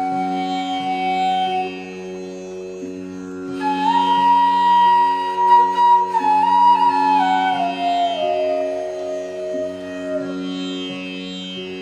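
Instrumental background music in an Indian classical style: a steady drone, joined about a third of the way in by a flute-like melody that steps slowly downward, with a soft beat about once a second.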